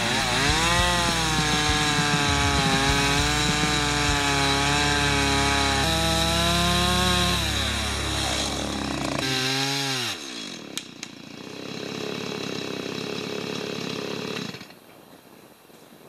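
Two-stroke chainsaw running at high revs while cutting into a tree, its pitch rising and falling as the chain works through the wood. About nine and a half seconds in, the revs fall away sharply, leaving a quieter, rougher sound that stops about five seconds later.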